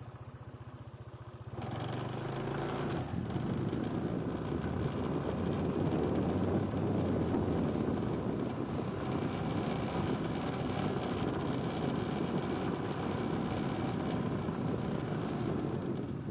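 A motor vehicle's engine humming steadily, then from about a second and a half in a louder, steady rushing noise that keeps on.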